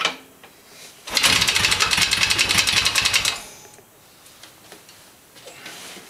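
A click, then the 1978 Yamaha XS650's engine turns over for about two seconds in a quick, even pulse and stops abruptly. This is an engine that has sat for over 30 years and, flooding, won't stay running.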